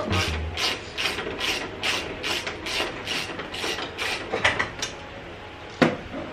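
Hand ratchet wrench clicking in steady strokes, about two or three a second, as the coilover's top mount nut on the strut tower is worked. A single sharp knock near the end.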